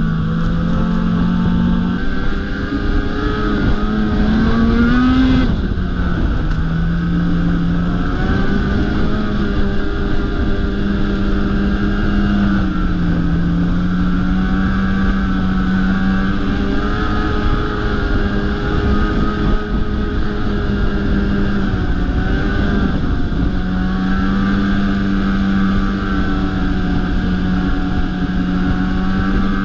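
Ski-Doo snowmobile engine running at trail speed, heard close from the rider's seat. Its pitch holds fairly steady, rises about four seconds in, then drops sharply, and after that eases up and down several times as the throttle changes.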